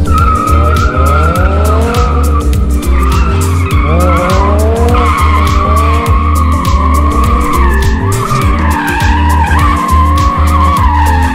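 Mazda MX-5 Miata race car doing donuts: the tyres squeal in a continuous wavering screech while the engine revs rise and fall, over background music with a heavy bass beat.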